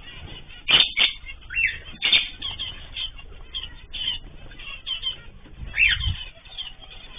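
Mixed cage birds chirping and calling in short notes, with wings flapping. Several sharp calls stand out, the loudest just under a second in, around two seconds and near six seconds.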